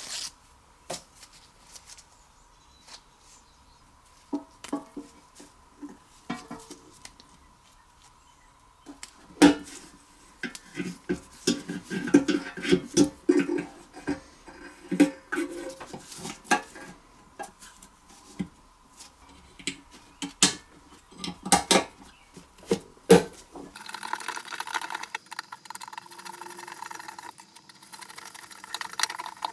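Metal parts and hand tools clinking and knocking on a workbench, sparse at first and busier about a third of the way in. A small motor starts near the end and runs steadily.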